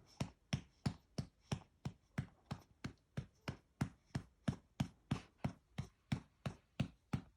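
A hand patting a baby's back in a steady rhythm, about three pats a second, to bring up a burp.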